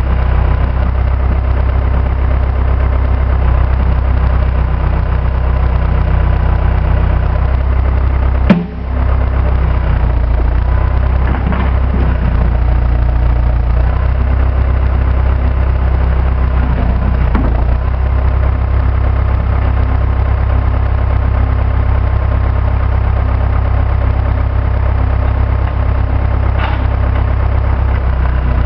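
Diesel engine of a 1960s Case 530CK backhoe running steadily. There is one sharp, loud knock about eight and a half seconds in, and a few fainter clunks later.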